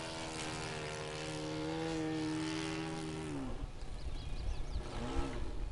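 Radio-control aerobatic model airplane's motor and propeller running steadily while it flies a stall turn. About three seconds in the pitch drops sharply, then rises and falls briefly again near the end, with a low rumble underneath.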